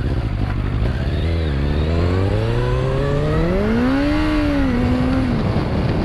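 2013 Kawasaki Z800's inline-four engine running through an Akrapovic exhaust and revving up. Its pitch climbs smoothly for about three seconds, peaks, then falls away and levels off before fading near the end.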